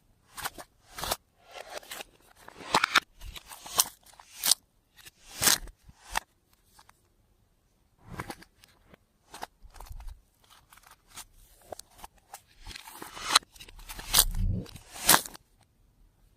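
Close-up handling noise of clear slime being worked with makeup mixed into it: irregular sharp clicks and crunchy crackles. There is a brief quiet pause about seven seconds in, and a denser, louder run of clicks near the end.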